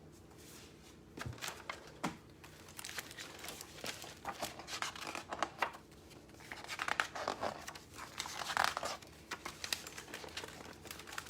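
Paper rustling and crinkling in short bursts, a picture book being handled and its pages turned.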